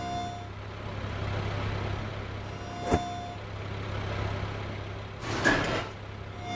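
Cartoon garbage truck sound effects: a steady low engine hum under a beep that repeats about every three seconds while the truck's mechanical arm reaches for and grips a trash bin. A sharp knock comes about three seconds in, and a short rushing, rattling burst about five and a half seconds in.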